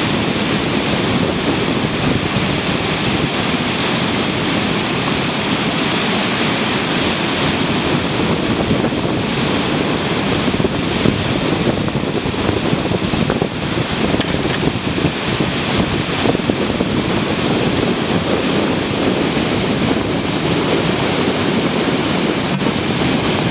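Loud, steady rush of whitewater pouring over a river weir, the river running high from a dam release.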